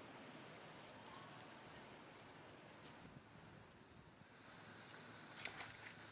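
Near silence: faint outdoor ambience with a steady high-pitched whine and a few faint clicks about five and a half seconds in.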